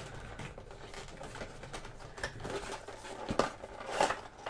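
A puzzle box being opened and unpacked by hand: soft rustling of the packaging with a few sharp clicks and knocks, most of them in the second half.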